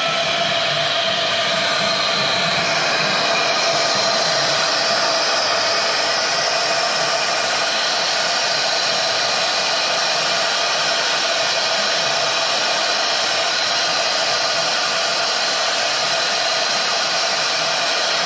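CNC router spindle running at high speed as a fine engraving bit carves a wooden dowel turned on the rotary axis. It is a steady whine with hiss over it, unchanging throughout.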